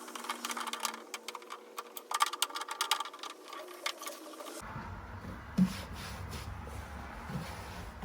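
Rapid clicking and rattling of items being handled and unpacked. About four and a half seconds in it cuts off abruptly to a low steady rumble with a couple of dull thumps.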